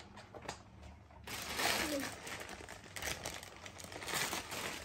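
Soft rustling and crinkling of the fabric seat cover and a plastic bag of toys being handled during baby walker assembly, starting about a second in, with a faint voice in the background.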